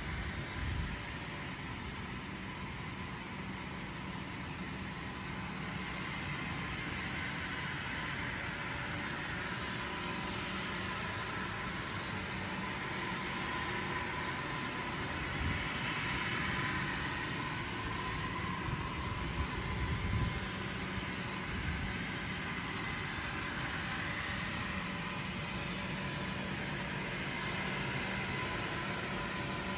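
Distant jet aircraft noise: a steady hiss with faint steady whining tones that swells a little midway. Wind buffets the microphone with low rumbles.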